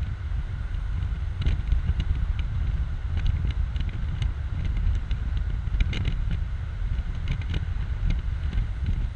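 Wind buffeting the microphone of an open-top 2004 BMW Z4 2.5i driving at speed: a heavy, steady rumble with the car's road and engine noise under it and scattered small clicks.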